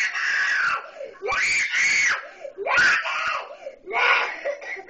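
A three-year-old girl screaming in a tantrum: about five loud, high-pitched screams in a row, each broken off by a short pause for breath.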